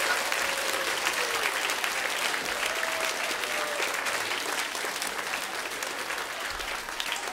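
Audience applauding, a dense patter of clapping that slowly fades.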